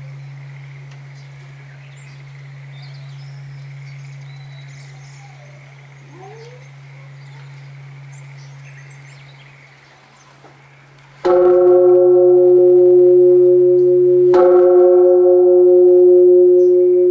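Buddhist temple bell struck twice, about three seconds apart, each strike ringing on loudly in a steady, sustained tone. Birds chirp before the first strike.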